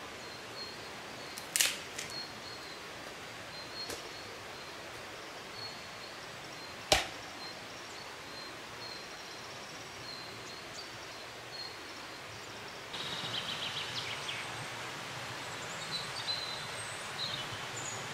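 A few sharp knocks of a hatchet on wood, the loudest a single hard crack about seven seconds in. A faint high chirping repeats throughout, and in the last few seconds a louder hiss comes in with quick high chirps and whistles.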